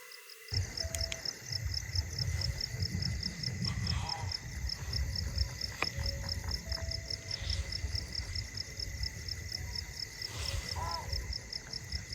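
Night insects chirping in a steady, even pulse, over a low rumble of wind or handling noise on the microphone. Twice a faint, short animal call comes from the forest, about four seconds in and near the end: an unidentified animal that the campers take for a deer.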